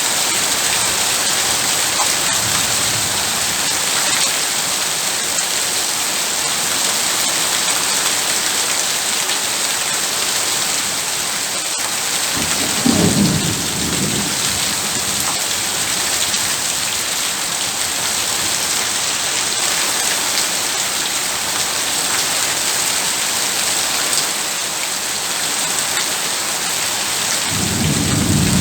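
Heavy rain pouring steadily, with a low rumble of thunder about halfway through and another starting near the end.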